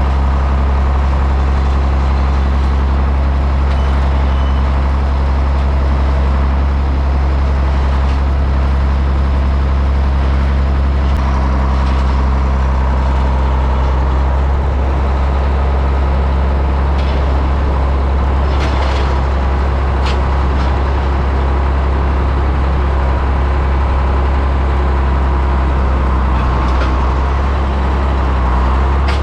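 Farm tractor's diesel engine running steadily, with a few short metallic clanks now and then.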